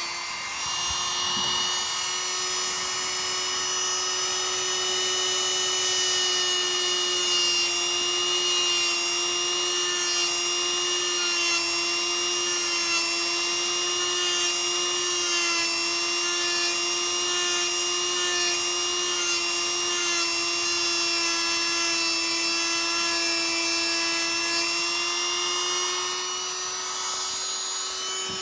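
Handheld rotary tool running with a steady high whine as its small sanding drum works a little steel knife blade.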